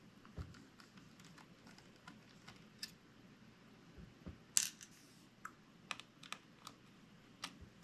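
Faint, irregular small clicks and taps of a precision screwdriver on the screws and metal-and-plastic parts of an open laptop, as a cooling fan is being unscrewed. One sharper tap comes about halfway through.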